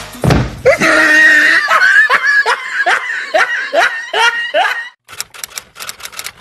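A person laughing in a long run of short repeated bursts, stopping about five seconds in, followed by a quick run of faint clicks.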